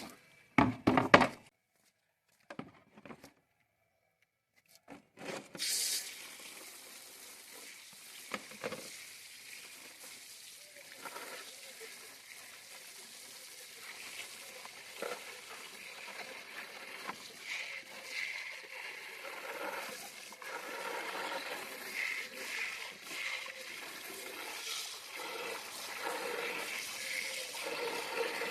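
Water splashing sharply at first, then after a short quiet gap water running steadily, with small irregular splashes, growing slowly louder: the sound of towels and mats being washed in water.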